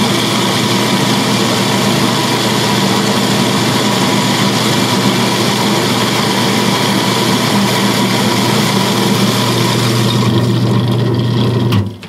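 Curtis GSG 3BLK commercial bulk coffee grinder running, its vertical flat steel burrs grinding whole beans to a drip coarseness with a steady motor hum under the grinding noise. The grinding noise thins out about ten seconds in, and the motor stops suddenly near the end.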